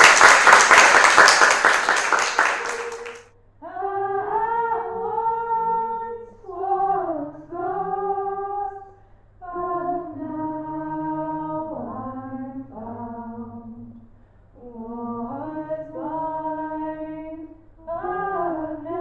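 Applause that stops about three seconds in, then a woman's voice singing a slow melody unaccompanied, in held notes with short pauses between phrases.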